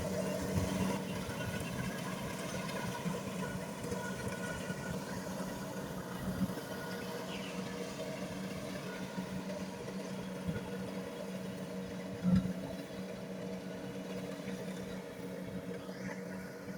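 Kubota rice combine harvester's diesel engine running at a steady speed, with one brief knock about twelve seconds in.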